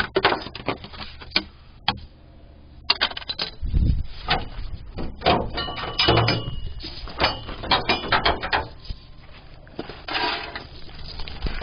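Irregular clicks, knocks and scrapes of hand tools and parts being handled under a vehicle, with a couple of dull thumps and a brief squeak about six seconds in.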